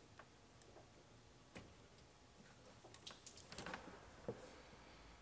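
Near silence with a few faint, scattered clicks and taps.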